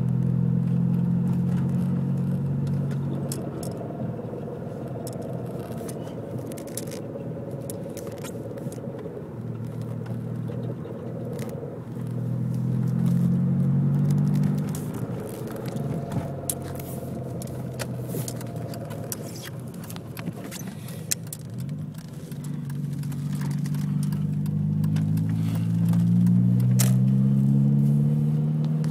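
2003 Volkswagen GTI's 1.8-litre turbocharged four-cylinder engine running, its pitch swelling and falling several times and rising steadily near the end. Scattered light clicks and ticks sound over it.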